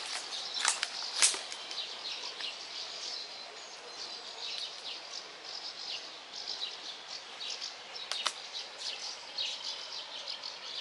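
Songbirds singing, many short chirps and trills overlapping, over a faint steady rush of flowing floodwater. A few sharp clicks sound near the start and once about eight seconds in.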